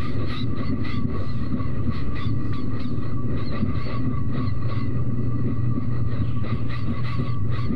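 Vocal imitation of an electric train running, made entirely with a human voice: a steady rumble and whine with a regular, quick clickety-clack of wheels over rail joints.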